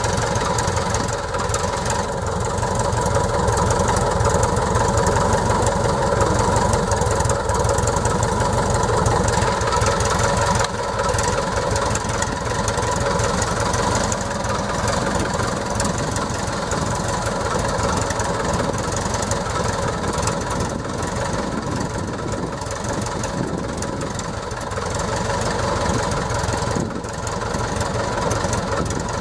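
Piper J-3 Cub's engine running steadily at low power as the plane taxis slowly on the ramp.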